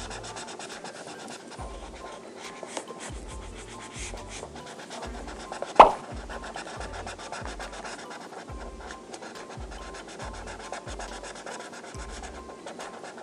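Soft background music with a low, evenly paced bass line, over the scratchy rubbing of a drawing tool colouring on paper. One sharp tap about six seconds in is the loudest sound.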